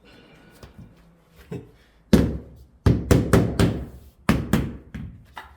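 Wooden floorboards being knocked into place with hammer blows, about eight or nine knocks in a rhythmic run: one, then a quick group of four, then several more.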